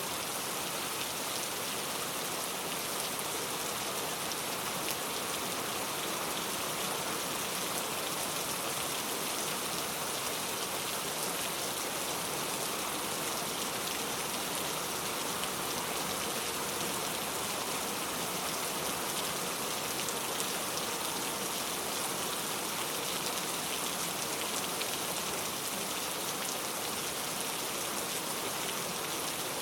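Heavy, steady rain falling, a dense even hiss of countless drops pattering on surfaces.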